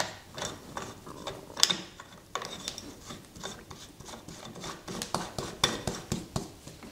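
Collet nut being turned by hand on a spindexer, closing a 20 mm collet on a steel screw: an irregular run of small metal clicks and scraping.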